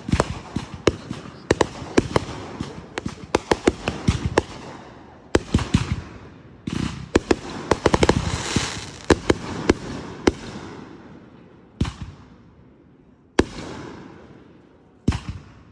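Fireworks going off: a rapid barrage of many sharp bangs with crackling in between, thinning after about ten seconds to single bangs about a second and a half apart.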